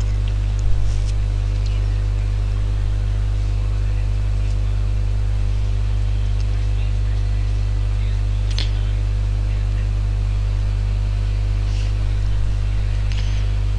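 Steady electrical mains hum with a faint hiss, picked up by the recording microphone, with a few faint clicks.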